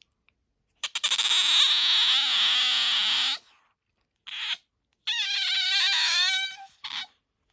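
Asian small-clawed otter squealing: a long, harsh, high-pitched squeal about a second in, a brief squeak, then a wavering pitched squeal, and a short chirp near the end.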